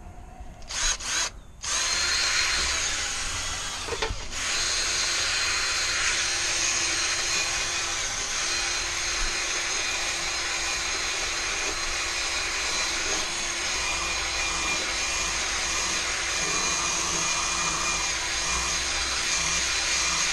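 Cordless drill spinning a wire brush against a drill press's rusty chuck and spindle, scrubbing off the rust. It gives two short bursts about a second in, then runs continuously with a steady motor whine and a brief let-up about four seconds in.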